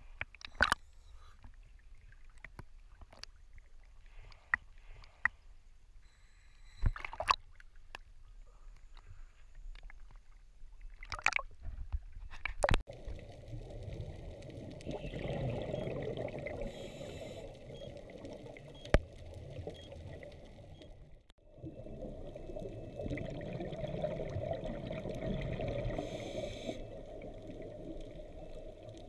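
Water sounds: scattered clicks and knocks at first, then a steady rush of water from about thirteen seconds in, broken off briefly a little past twenty-one seconds.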